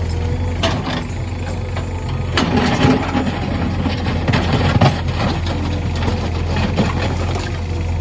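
JCB 3DX backhoe loader's diesel engine running steadily, with irregular clattering about a third of the way in and again past the middle.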